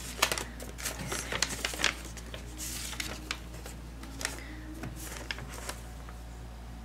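Paper and envelope rustling and crinkling, with quick light clicks and taps, as a sticker-sealed envelope is peeled open by hand; busiest in the first couple of seconds, then sparser.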